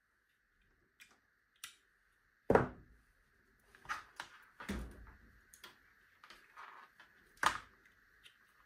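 Handling noises from loose speaker drivers and clip-lead test wires: scattered clicks and knocks, two of them heavier thumps, over a faint steady hiss.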